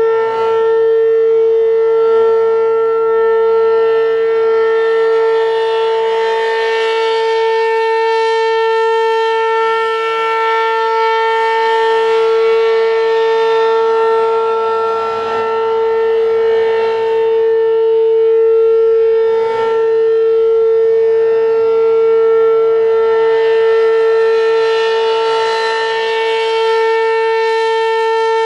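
American Signal RM-127 electromechanical outdoor warning siren sounding a loud, steady single-pitch tone at full speed during a routine test. Its upper overtones slowly swell and fade, brightest twice, about 18 seconds apart.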